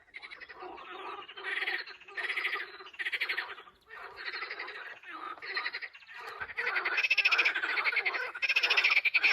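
Frogs calling in a chorus: rapid pulsed croaks in overlapping bursts, louder in the last couple of seconds.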